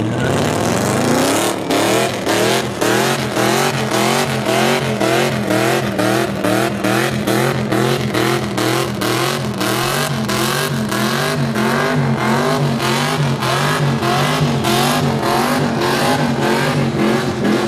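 A car doing donuts: the engine is held at high revs, its pitch rising and dropping in a rhythm of about twice a second, while the spinning tyres screech on the asphalt.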